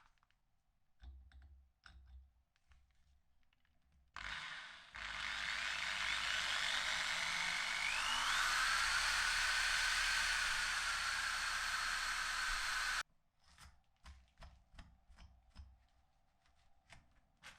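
A power tool starts about four seconds in, runs loudly for about nine seconds with a faint shifting whine, and cuts off abruptly. Light clicks and taps of tool handling come before and after it.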